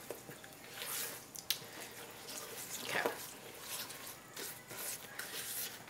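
Spatula stirring a wet, runny batter of eggs, sugar and coconut oil in a large mixing bowl and scraping the bottom: faint, irregular squishing strokes.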